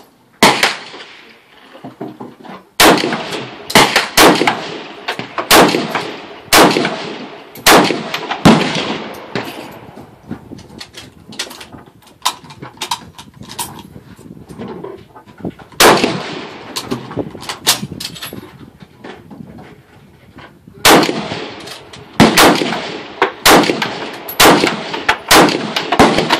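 Rifle gunfire on a range firing line from more than one shooter: sharp single shots at irregular intervals, some in quick runs and some louder than others, each with an echoing tail.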